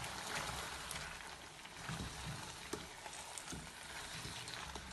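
Chicken, potatoes and sliced sweet peppers sizzling steadily in oil in a wok, with a few soft knocks and scrapes of a spatula stirring them.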